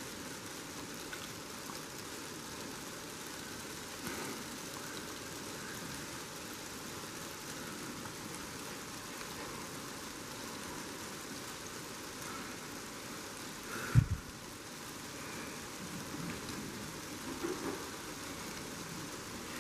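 Steady rain falling, an even hiss. About fourteen seconds in comes a single short, sharp thump.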